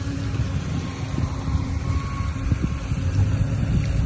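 Wind rumbling on the microphone, with a faint steady hum underneath.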